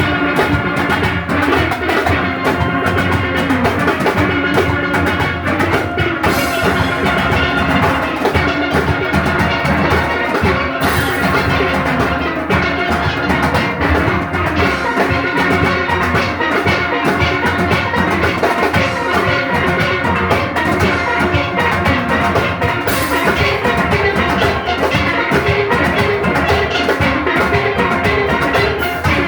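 A steel orchestra playing: many steelpans sounding a dense run of ringing melodic and chord notes over a steady drum-kit and percussion beat.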